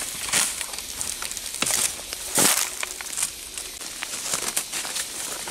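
Footsteps crunching and rustling through dry bamboo leaf litter, in irregular crackling steps.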